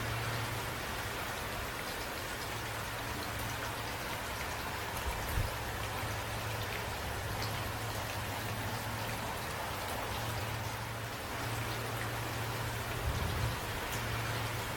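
Steady rain falling, with individual drops ticking over an even hiss and a low steady hum underneath. A couple of brief low thumps come about a third of the way in and near the end.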